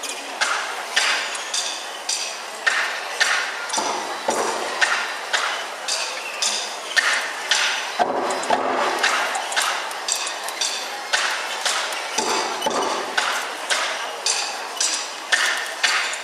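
Percussion struck in a steady rhythm, about two bright, ringing, clinking strikes a second, with a fuller, deeper stroke roughly every four seconds.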